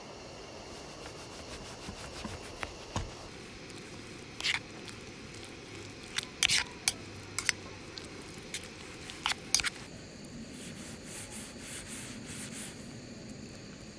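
Irregular sharp clicks and taps of small objects being handled, about a dozen of them between about two and ten seconds in, over a steady low background hiss.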